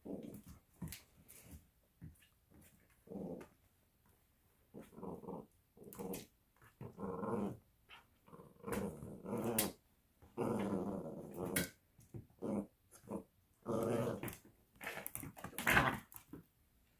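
Italian Greyhound puppies growling in play while tugging at a plush toy: a string of short growls, one after another, the loudest near the end.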